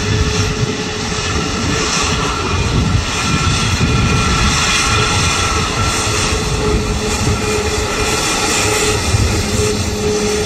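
Boeing 737 MAX's CFM LEAP-1B turbofan engines running, a steady jet roar with a constant whine over a low rumble, a little louder from about three seconds in.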